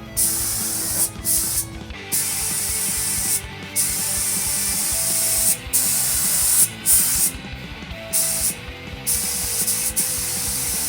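Compressed-air paint spray gun hissing in a string of trigger pulls of a second or several seconds each, with short breaks where the trigger is let go.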